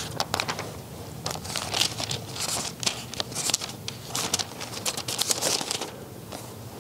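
Thin Bible pages rustling and crinkling as they are leafed through in a run of quick flicks. The rustling stops about a second before the end.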